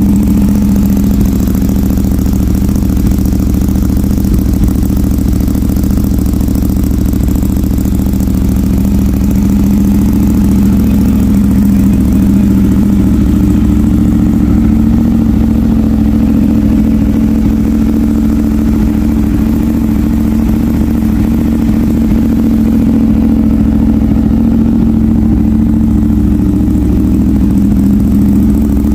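Ducati 959 Panigale's Superquadro L-twin idling steadily through a full aftermarket exhaust, loud and even.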